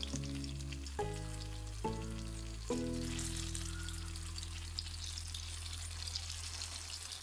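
Battered saba banana pieces sizzling in hot cooking oil in a wok, a steady high crackle. Background music plays over it, changing chord a few times early and then holding one long chord.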